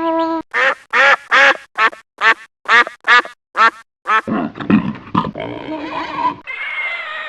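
Animal calls: about nine short nasal calls in quick, even succession, followed by low grunts and a rougher, noisier stretch near the end.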